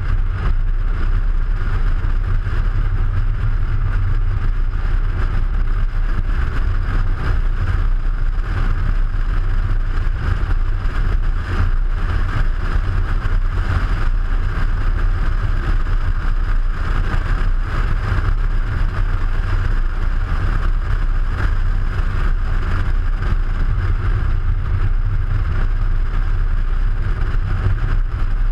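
Steady rush of wind and tyre noise picked up by a camera mounted on the outside of a moving Audi A3, with a deep rumble of wind buffeting the microphone.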